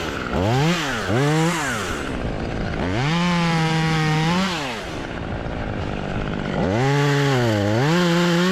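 Chainsaw revved in several quick blips, then held at high throttle twice while cutting off branches.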